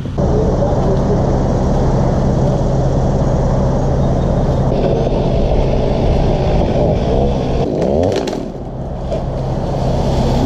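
Chainsaw engine running at high speed, dipping and then revving back up about eight seconds in.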